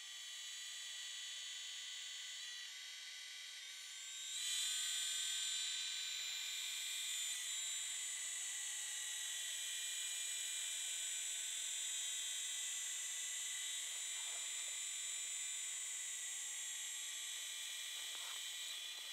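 Radio-controlled helicopter in flight: a steady, high-pitched whine from its motor and rotors, stepping up in loudness about four seconds in and holding there.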